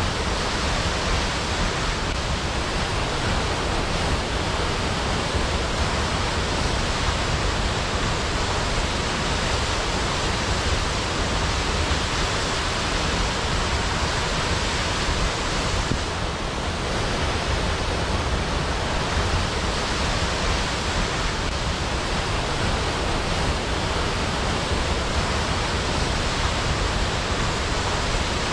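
Waterfall: falling water making a steady, even rush of noise with no change in level.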